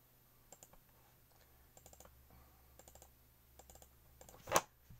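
Computer mouse and keyboard clicks at a desk: a few faint clusters of quick clicks, then one loud sharp click about four and a half seconds in.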